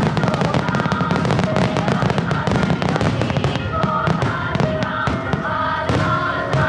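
A musical starmine: fireworks shells bursting and crackling in rapid, dense succession, fired over music played through the show's loudspeakers.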